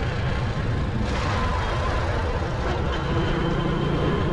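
Motorcycle engine running at a steady pace while riding, with a dense low rumble of wind and road, picked up by a helmet-mounted action camera's microphone.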